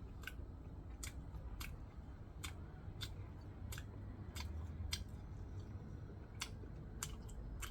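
A person chewing food close to the microphone, with about a dozen sharp, irregular clicks over a low steady hum.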